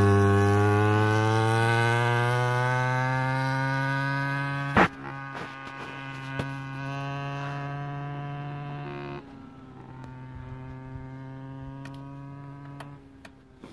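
49cc two-stroke pocket ATV engine held at high revs as it pulls away, its pitch climbing steadily while it fades with distance. A sharp knock about five seconds in; after it the engine drone carries on quieter and steadier, drops again about nine seconds in, and fades out near the end.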